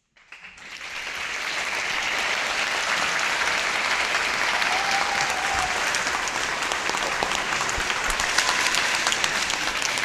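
Audience applauding at the end of a classical guitar piece. The clapping starts from silence, swells over the first two seconds and then holds steady.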